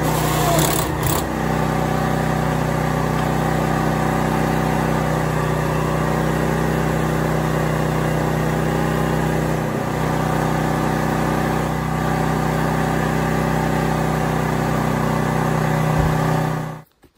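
Small portable engine generator running steadily at constant speed, with a few light knocks about a second in. The engine sound stops abruptly near the end.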